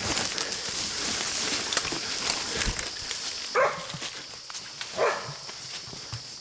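Hunting dog barking twice, about three and a half and five seconds in, over a steady high-pitched hum.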